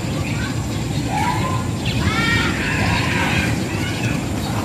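Outdoor ambience: a steady low rumble, with a few short calls that rise and fall in pitch about one and two seconds in.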